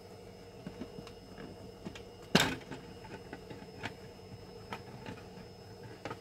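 Large hinged 3D-printed PLA egg being handled and opened: light plastic taps and clicks, with one sharp hollow plastic clack about two and a half seconds in, over a faint steady hum.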